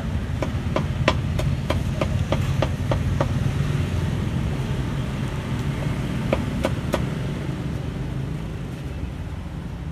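Meat cleaver chopping crispy roast pork on a round wooden chopping block: quick strikes about four a second for the first three seconds or so, then two more strikes a little past halfway. Under them runs a steady low hum of street traffic.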